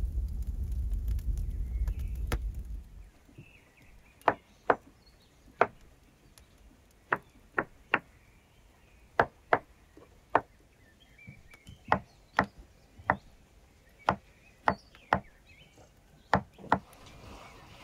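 A low rumble from a wood fire burning in a brick oven for about the first three seconds. Then a chef's knife chops button mushrooms on a wooden cutting board: about seventeen sharp knocks, unevenly spaced and often in quick pairs.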